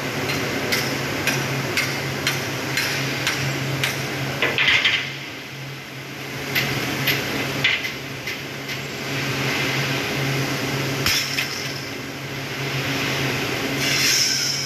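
Factory-floor machinery: a steady low machine hum with frequent sharp metallic clanks and knocks, and a brief hiss twice, about five seconds in and near the end.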